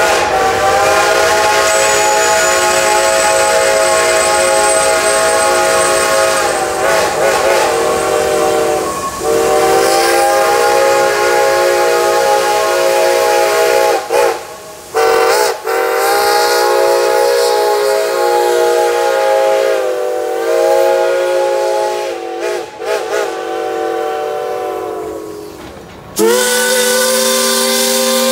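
Steam whistles on several passing Shay geared steam locomotives, blowing long chord-like blasts almost without pause. There are two short breaks around the middle and brief warbling where a whistle valve is worked. Near the end a different, lower-pitched whistle takes over.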